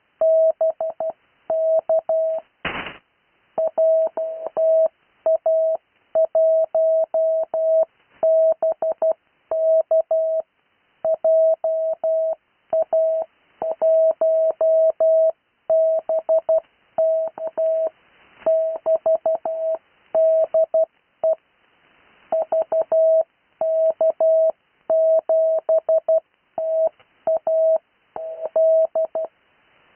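Morse code (CW) tone, a single mid-pitched note keyed on and off in dots and dashes, sending amateur radio callsigns for copying practice. A brief sharp crackle cuts across it about three seconds in.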